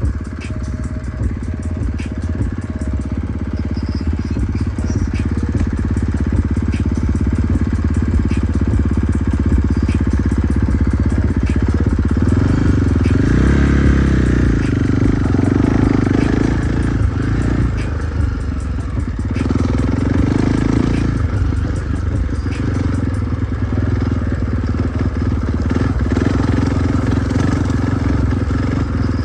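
Husqvarna 450 dirt bike's single-cylinder four-stroke engine running while being ridden, its pitch rising and falling with the throttle.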